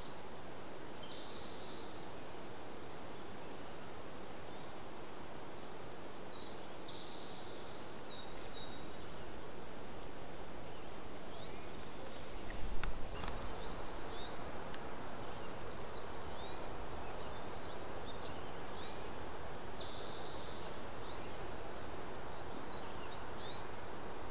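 Many small birds chirping and calling, short sweeping chirps and a few buzzy trills, over a steady outdoor background hiss. A single low thump sounds about halfway through.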